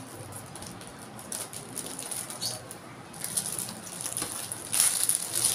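Spoon and knife scraping soft wet clay, with small soft clicks. From about three seconds in, a sheet of plastic film rustles and crinkles, loudest near the end.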